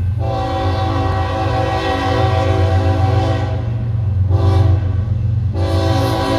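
Diesel locomotive air horn on a BNSF ES44C4 sounding the grade-crossing signal: a long chord-like blast, a short one about four seconds in, then another long blast starting near the end. A steady low rumble from the approaching train underlies it.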